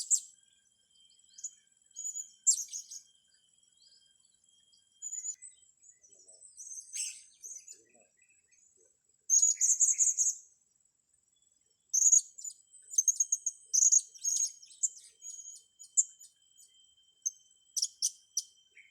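Small cage birds chirping and twittering in thin, very high-pitched bursts, clustered in bouts with short pauses between them. A faint steady high whine runs underneath.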